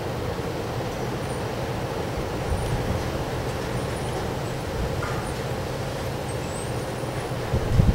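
Strong wind blowing: a steady low rumble, with a stronger gust buffeting the microphone near the end.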